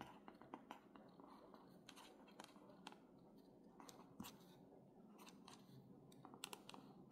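reMarkable 2 stylus nib writing on the tablet's textured e-ink screen: faint squeaks and small ticking pops with each stroke. It sounds more like a marker on a whiteboard than a pencil on paper.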